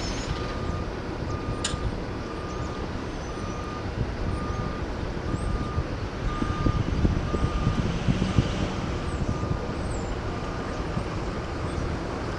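John Deere 310SJ backhoe loader's backup alarm beeping about one and a half times a second over the rumble of its running diesel engine, which grows louder for a few seconds in the middle. A single sharp click sounds about two seconds in.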